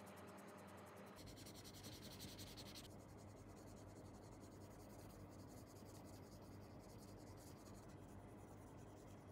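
Faint scratchy rubbing of a cotton swab wiped over small painted plastic model parts, lifting off black residue.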